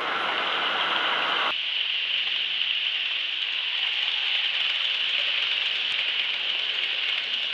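Model trains running on a layout: a steady hissing whirr of wheels and motors on the track, which changes character abruptly about a second and a half in.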